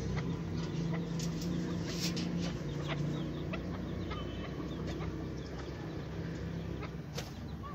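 Chukar partridges clucking, with scattered short, sharp calls.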